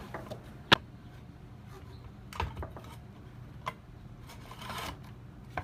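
Scattered sharp clicks and knocks as the mini circular saw is handled and set on a wooden board, with no motor running. There are two loud clicks in the first second, more knocks around the middle and a brief rustle near the end.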